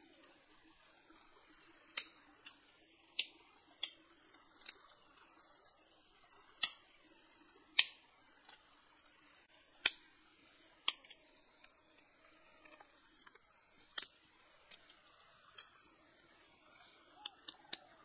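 Small wood fire crackling: about fifteen sharp pops at irregular intervals, the loudest around the middle, over a faint steady high-pitched hum.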